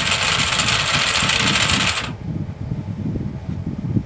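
Brushed DC motor driving an 8:1 reduction gearbox of 3D-printed plastic spur gears, running with a loud whir and gear noise. It cuts off suddenly about two seconds in, and a lower rumble carries on after it.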